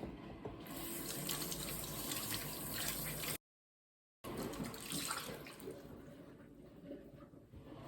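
Water running from a tap into a sink, a steady splashing hiss, broken by a brief dead-silent gap a little over three seconds in, then running again and thinning out near the end.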